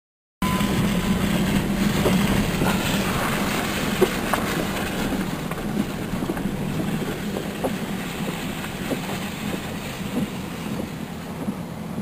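A vehicle's engine running, heard from inside the cab: a steady low hum with scattered light ticks and knocks. It cuts in suddenly about half a second in.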